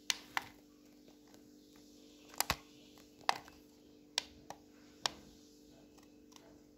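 Irregular sharp clicks and knocks, about a dozen, over a faint steady hum.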